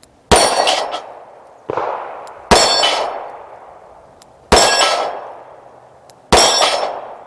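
Five double-action shots from a Rock Island Armory AL9.0 9mm revolver, unevenly spaced about one to two seconds apart, most followed by the ringing clang of steel plates on a dueling tree being hit and flipping.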